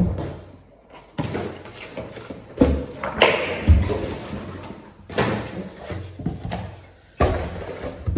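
Books and papers being handled in a cardboard box: paper rustling and sliding, with several dull thumps as items are set down or dropped.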